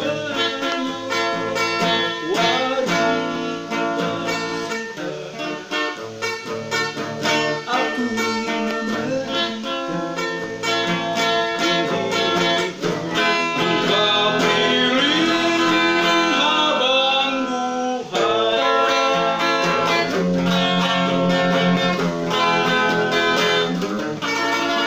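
Hollow-body electric guitar played continuously, picking a melodic line with bent notes.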